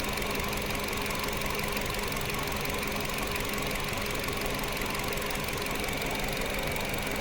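Nissan HR16 1.6-litre four-cylinder engine idling steadily with one ignition coil unplugged, so one cylinder is misfiring.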